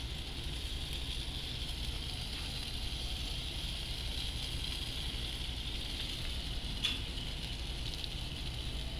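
Sauced chicken drumsticks sizzling on a hot charcoal grill while barbecue sauce is brushed on, a steady hiss over a low rumble, with one faint click about seven seconds in.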